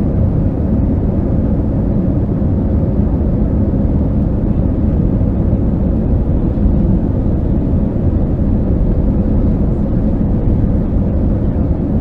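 Airbus A319 cabin noise heard from a window seat over the wing: a steady low rumble from the jet engines and the aircraft rolling on the ground, with a faint steady hum.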